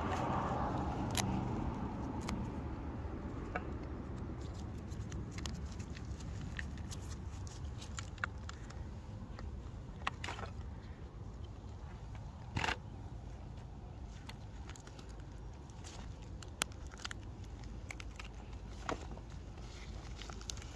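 Blocks of gym chalk being crushed and broken by hand: a soft crumbling crunch with scattered sharp cracks, the clearest about ten and twelve seconds in, over a steady low rumble.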